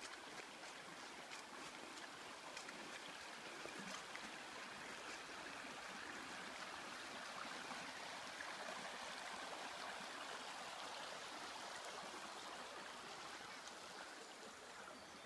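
A small river running over a shallow stony riffle: a faint, steady rush of flowing water.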